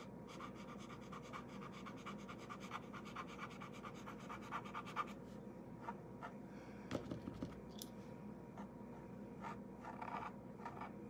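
Black paint pen scratching over the painted door hanger in quick back-and-forth strokes, several a second, as a shadow is filled in. About halfway through the strokes thin out to scattered ticks and a few sharper taps.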